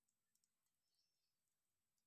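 Near silence with a few faint clicks.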